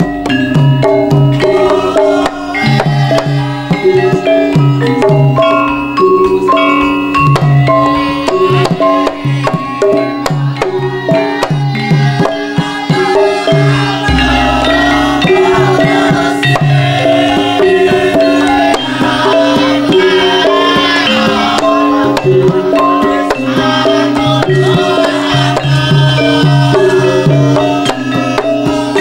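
Javanese gamelan music accompanying a Lengger dance: a kendang hand drum keeps a steady pattern under repeated pitched metallophone notes. A deep low stroke sounds about halfway through.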